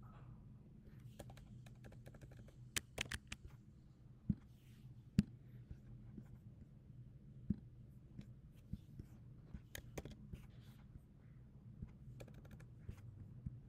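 Faint, scattered computer keyboard keystrokes and mouse clicks, some in quick clusters and some single, over a low steady hum.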